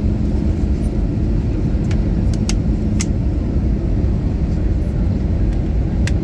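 Passenger jet cabin noise while the plane rolls fast along the runway: a steady, loud low rumble of engines and wheels with a faint hum, broken by a few sharp clicks.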